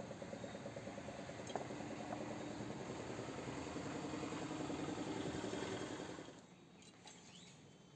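An engine running steadily with a fast, even pulse, stopping abruptly about six seconds in. A single sharp click about one and a half seconds in.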